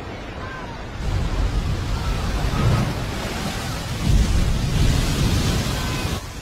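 Huge ocean wave crashing and rushing: a deep rumble under a wide hiss that comes in about a second in, swells in surges and cuts off suddenly near the end. Faint high chirps are heard in the first second.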